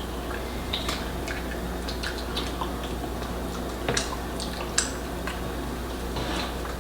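Small scattered clicks and taps of people eating fufu and soup at the table, with two sharper clicks about four and five seconds in, over a steady low hum.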